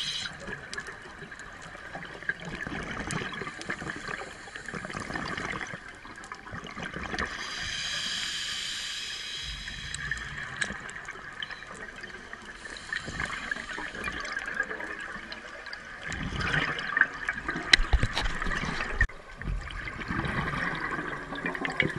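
Scuba diver breathing through an open-circuit regulator underwater: a hissing inhale about eight seconds in, and gurgling bursts of exhaust bubbles, heaviest in the last few seconds.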